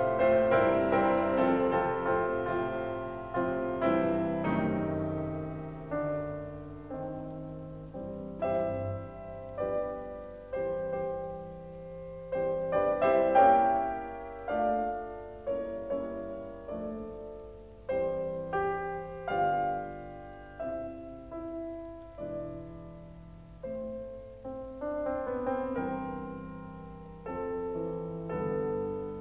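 Background music on piano: a slow piece with notes and chords struck about every second or two and left to fade.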